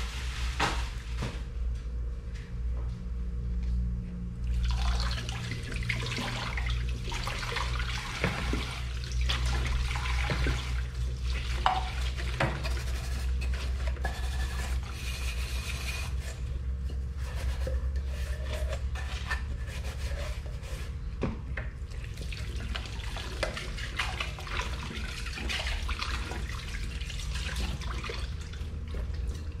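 Tap water running into a kitchen sink during dishwashing, coming and going in long stretches, with small clinks of dishes and a steady low hum underneath.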